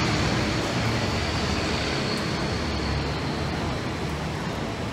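Steady background rumble and hiss with no distinct event, the kind of ambient noise of a busy roadside or market place.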